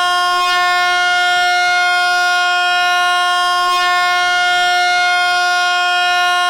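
Horn sound from an air-horn phone app: one long, loud, steady blast at a single pitch.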